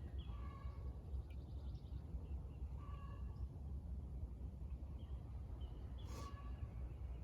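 Crows cawing three times, a few seconds apart, with small birds chirping briefly over a low steady rumble.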